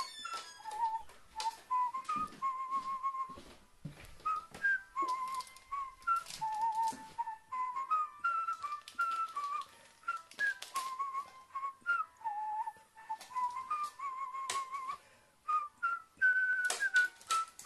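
A whistled tune: a light melody of short notes stepping up and down, with scattered clicks and taps throughout.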